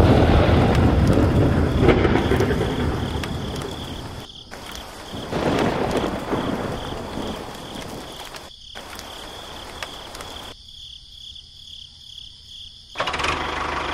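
Thunderstorm sound: two deep rolls of thunder with rain. The first breaks at the start and the second about five seconds in, each dying away over a few seconds. A steady chirring of insects runs underneath.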